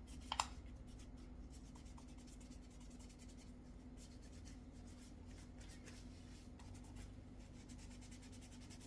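Paper towel dampened with Windex rubbed over a Logitech Lift vertical mouse, giving faint, repeated scratchy wiping strokes. A steady low hum sits underneath, with one short tick near the start.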